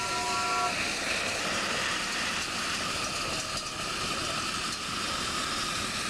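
Chime whistle of a miniature ride-on live steam locomotive, several tones sounding together as one chord, cutting off about a second in; a steady hiss follows as the train runs on.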